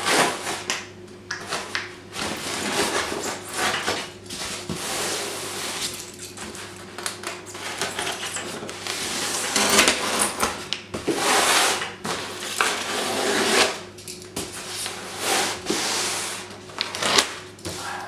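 A polystyrene shipping box being worked open by hand: irregular bursts of scratching, scraping and rubbing at the foam lid and its seal, some of them a second or so long.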